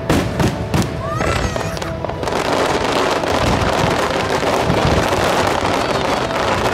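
Fireworks: a few sharp bangs of shells bursting in the first two seconds, then a dense, continuous crackle from glittering stars falling across the sky.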